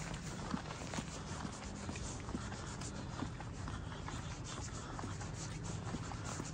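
Footsteps on a paved street, about two steps a second, with clothing or a hand rubbing against the microphone, over a steady low hum.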